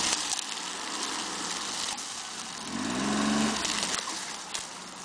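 Motor vehicle driving along, with steady engine and rolling noise; the engine revs up and back down about three seconds in.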